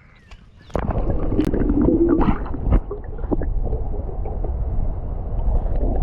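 Water gurgling and sloshing with a low, muffled rumble as a crappie is lowered back into the water by hand. It starts about a second in and runs on steadily.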